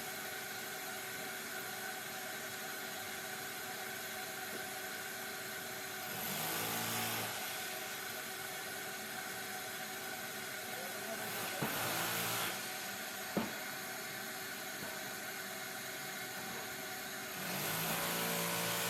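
Electric power tool motor running steadily during demolition of a fireplace's fire brick wall. It gets louder three times, and there are two sharp knocks around the middle.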